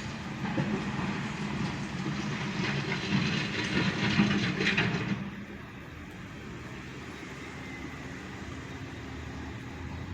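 Backhoe's diesel engine running while gravel scrapes and clatters loudly for about five seconds, then the engine carries on alone, quieter.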